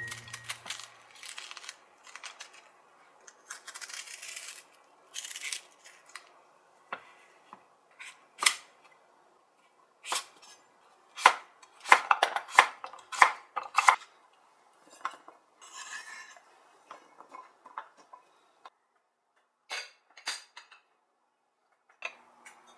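Cookware and kitchen utensils being handled: scattered clinks, knocks and scrapes, with a quicker run of sharper strikes between about 11 and 14 seconds in.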